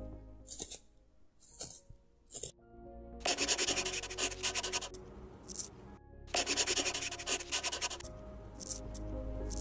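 Wooden pencil writing on a notebook page, scratching in two spells of about two seconds each, with a few short scratches before them, over soft background music.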